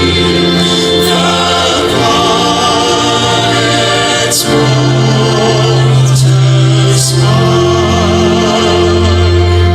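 Youth choir singing a gospel song.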